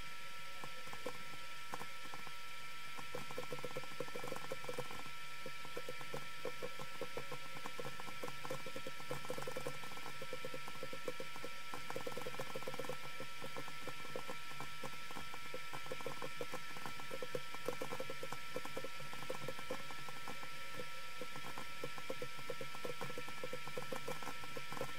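Rapid, dense clicking of a computer mouse and keyboard in sped-up desktop audio, over a steady hum with a few constant tones. The clicks grow thicker about three seconds in.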